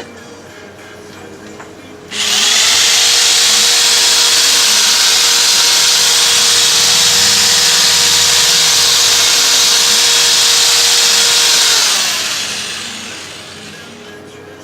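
A power sander starts about two seconds in and runs loud and steady with a whine for about ten seconds, sanding the bead seat of a go-kart wheel rim, then is released and winds down with falling pitch.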